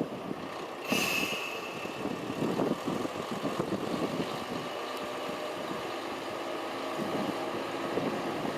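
MRT300 diesel railcar pulling away: a short burst of air hiss about a second in, then the diesel engine running up steadily as the car moves off.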